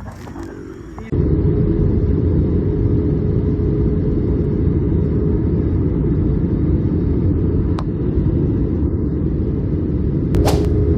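Loud, steady rumble of a vehicle in motion with a constant hum, starting abruptly about a second in. A brief sharp sound comes near the end.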